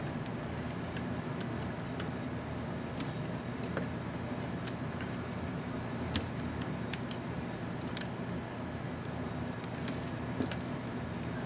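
Scattered small sharp clicks of a laptop keycap and its plastic retainer clips being handled and fitted, over a steady low background hum.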